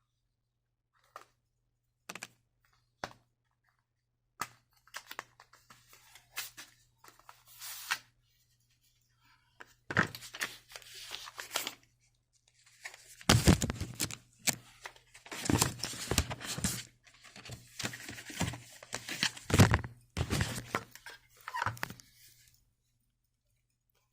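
Paper and cardboard packaging of a watch box being handled and opened: a few light taps and clicks, then louder, busier rustling and scraping from about ten seconds in.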